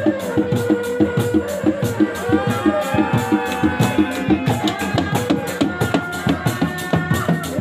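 Reak music: dog-dog frame drums beating a fast, steady rhythm of about four strokes a second, with a tarompet (Sundanese shawm) playing a sustained, wavering melody above.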